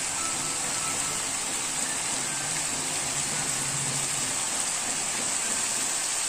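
Jackfruit and potato curry sizzling in the pan, a steady even hiss.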